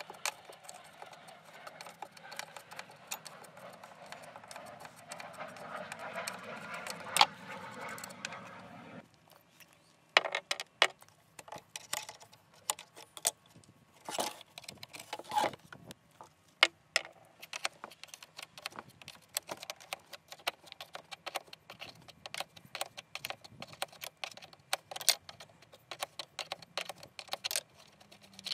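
An open-end spanner working the rusty nuts and bolts of an old chain link fence machine: a steady grating scrape for about the first nine seconds that stops abruptly, then scattered sharp metal clinks and taps of the spanner and the loosened parts.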